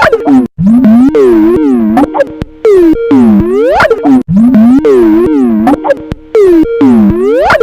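The Skype ringtone, electronically warped and played loud, its synth melody bending in swooping falls and rises of pitch and looping about every four seconds.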